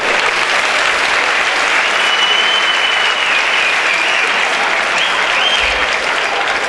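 Large theatre audience applauding steadily, with a high steady tone held over the clapping from about two seconds in until nearly six seconds in.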